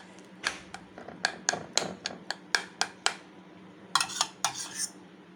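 Metal spoon clinking against a ceramic serving bowl while stirring curd rice: a run of sharp clinks, about three to four a second, then a pause and a couple of longer scraping clinks about four seconds in.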